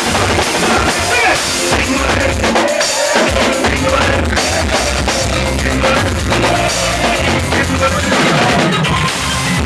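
Loud soca music with a driving drum beat and heavy bass; the bass drops out briefly about three seconds in, then comes back.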